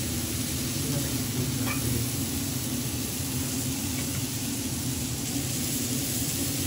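Chopped onion and minced garlic sizzling steadily in fat on a flat-top teppan griddle, with a steady low hum underneath.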